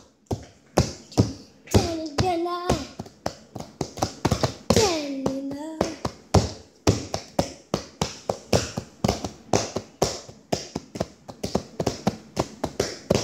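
Rapid, irregular hand taps and slaps on a hard surface, with a child's wordless vocal sounds between them, including a long sliding call about five seconds in.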